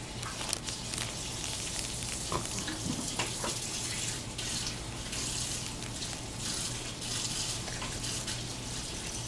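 Water running steadily from a kitchen tap in the background, with a few brief, faint baby vocal sounds about two to three seconds in.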